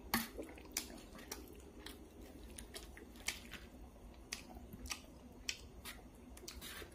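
A person chewing a mouthful of stir-fried field rat close to the microphone, with many short, sharp, irregular clicks.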